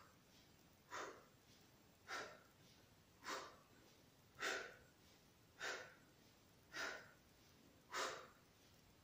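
A woman breathing out in short, audible puffs, one with each abdominal crunch: seven evenly spaced breaths, about one every 1.2 seconds.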